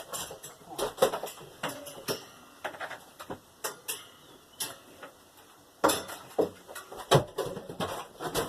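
A series of irregular knocks and clinks, roughly two a second with a busier cluster near the end, as hard objects are moved and handled.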